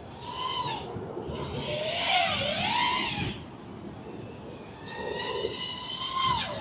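iFlight Nazgul V2 FPV quadcopter's brushless motors and propellers whining, the pitch rising and falling with the throttle. A louder surge comes about two seconds in, and near the end a held whine drops away as the throttle comes off.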